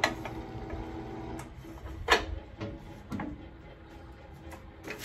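Metal clanks and knocks at a steel barbecue smoker, the loudest about two seconds in as the heavy lid is shut, over a steady mechanical hum that fades during the first half.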